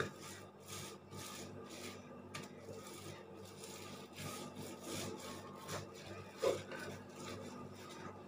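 Wooden rolling pin rolling back and forth over plastic film, flattening a crumbly ground-peanut and honey mixture: a quiet run of short rubbing strokes, with one brief louder knock about six and a half seconds in.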